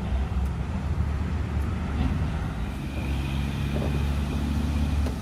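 Steady low rumble of a motor vehicle engine running, with a steadier hum and a faint high whine joining about halfway through.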